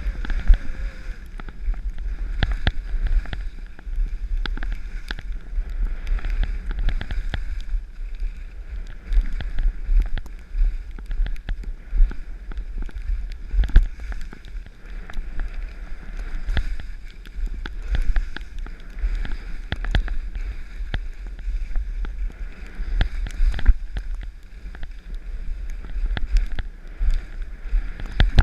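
Wind buffeting the microphone in a steady low rumble while sliding downhill, with edges hissing and scraping over snow and many short knocks and clatters throughout.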